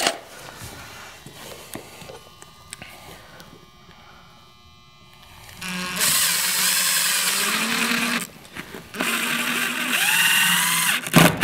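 Makita 18V cordless impact driver driving trim screws into a trim piece, in two runs of about two seconds each. The first starts about halfway through; in the second the motor's pitch rises. Faint handling noise comes before them.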